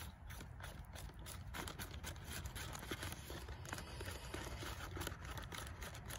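Faint rustling and crinkling of a zip-top plastic bag and a plastic spoon scraping powdered cocoa and sugar off a folded paper into the bag: a run of small irregular clicks and scrapes over a low steady rumble.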